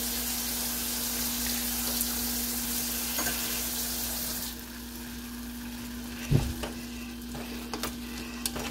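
Spinach in a hot stainless steel pot hissing and sizzling as a little water hits it, the hiss dropping away suddenly about four and a half seconds in. A knock follows, then a spoon stirring against the pot near the end, over a steady low hum.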